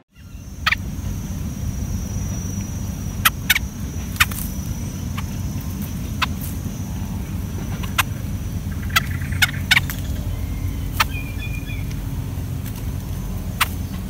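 Outdoor ambience: a steady low rumble with about a dozen sharp, short clicks or chips at irregular intervals, a faint steady high whine, and one brief chirp about two thirds of the way in.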